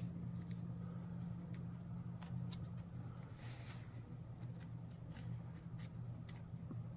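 Faint rustling and small ticks of gold leaf and its backing paper being handled and pulled apart, over a steady low hum.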